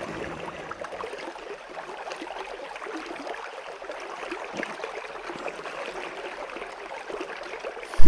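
River water running steadily, an even rushing sound with many small splashes.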